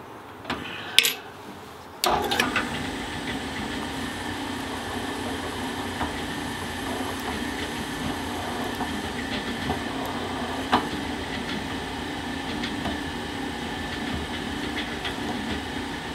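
Benchtop drill press: a few sharp clicks as the bit is tightened in the chuck, then the motor switches on about two seconds in and runs steadily with a low hum while drilling a part held in the drill press vise, with an occasional click.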